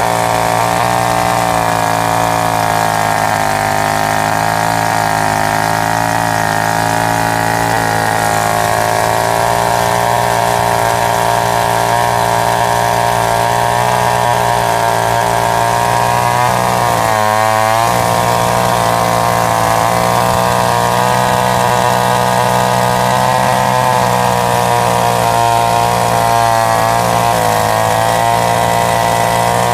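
Vintage 1960s Sears two-stroke chainsaw running steadily at idle, its pitch wavering briefly about halfway through.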